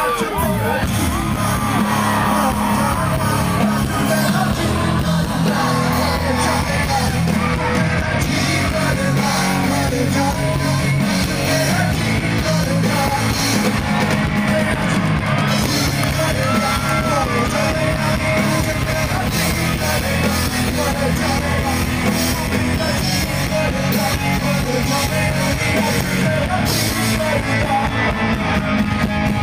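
Loud live rock music heard from the crowd: a vocalist rapping and shouting into a microphone over a band with bass guitar and drums, with yells from the audience.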